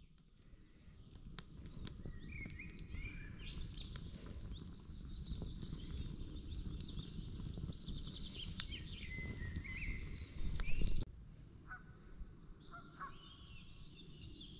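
Wood fire of split logs crackling and popping in a steel fire pit, with birds calling in the background. The fire sound stops abruptly about eleven seconds in, leaving only quieter bird calls.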